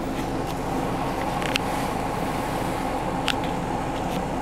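Steady engine and drivetrain drone inside the cab of a four-wheel-drive vehicle driving slowly on a dirt track, with two short clicks about a second and a half in and again past three seconds.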